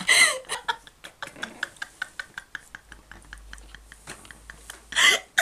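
Two women laughing helplessly: a loud burst of laughter, then stifled laughter in short breathy pulses, several a second, then another loud outburst near the end.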